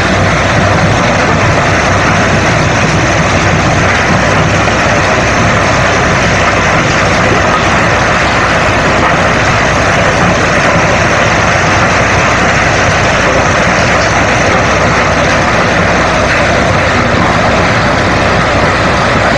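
Rock crushing and screening plant running: crusher, vibrating screen and belt conveyors processing stone, a loud, steady, unbroken mechanical din.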